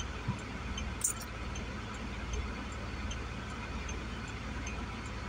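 Steady low rumble of a long freight train rolling past. A faint, regular ticking runs through it, and there is one sharp click about a second in.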